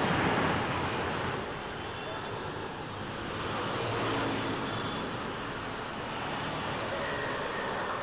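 Street traffic noise: a steady wash of passing motor vehicles that starts suddenly and holds throughout.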